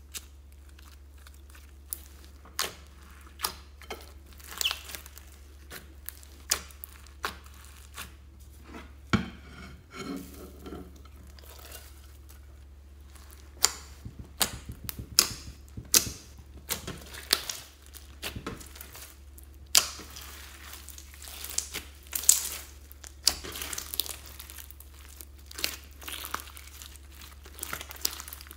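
Hands squeezing, pressing and stretching clear slime packed with floam beads and sprinkles, giving irregular sharp clicks and crackles.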